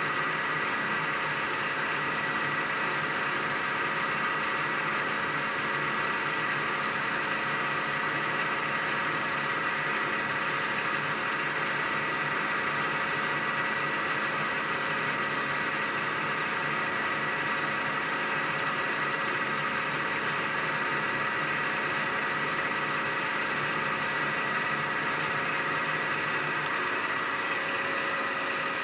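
Milling machine running while a 1/8-inch end mill cuts a clearance slot into a brass part: a steady hiss with a constant high whine that does not change throughout.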